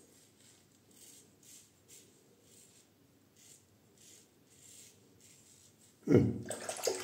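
Double-edge safety razor (Goodfellas Syntesi with a Kai blade) scraping through lather and beard stubble in a series of short, faint rasps, one stroke after another. About six seconds in, a much louder rush of running tap water starts.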